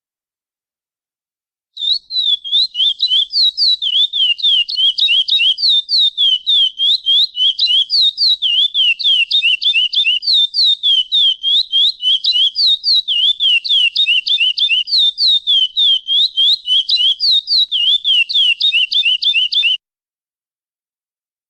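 Chestnut-bellied seed finch (curió) calling in a fast, unbroken run of short, downward-slurred whistled notes, several a second. The run starts about two seconds in and stops suddenly about two seconds before the end.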